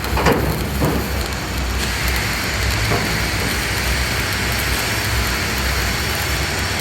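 Stick (SMAW) welding arc crackling and sizzling steadily, with a few sharper pops in the first three seconds, over a steady low hum.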